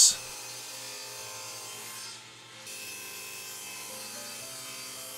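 Table saw crosscutting a pine board, the blade cutting through the wood.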